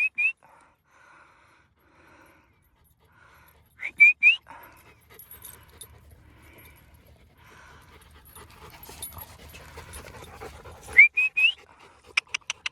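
A person whistling to call dogs: three bursts of short, quick rising whistles, one at the start, one about four seconds in and one about eleven seconds in. A dog pants softly in between, and a few sharp clicks come near the end.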